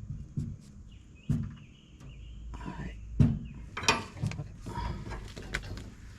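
Irregular knocks and clinks of hand tools and metal parts during work under a truck, with a faint high squeak drawn out for a couple of seconds about a second in.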